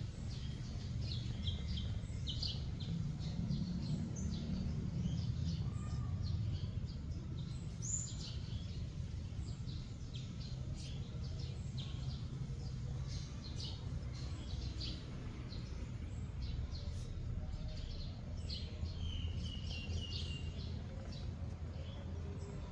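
Small birds chirping in short, scattered calls throughout, with a quick run of repeated notes a few seconds before the end, over a steady low rumble.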